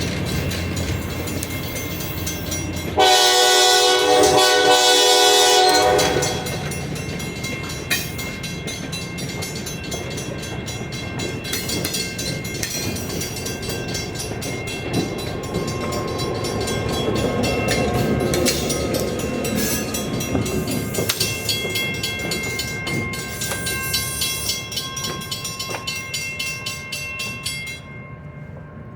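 Departing train: one long horn blast about three seconds in, then the train rolling past with wheels clicking over the rails and thin high squeals, fading near the end.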